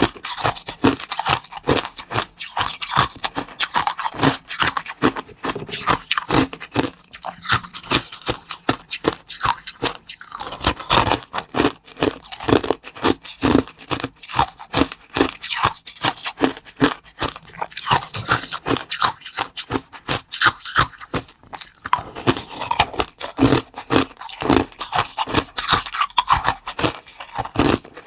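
Close-up crunching and chewing of hard, crisp food, a rapid irregular run of sharp crunches with scraping between bites.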